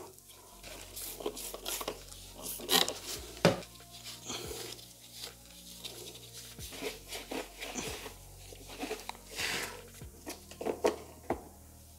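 Gloved hands handling a plastic parking-sensor bracket and wiping the bumper's inner surface with a cloth: scattered clicks, taps and rubbing, over a faint low hum.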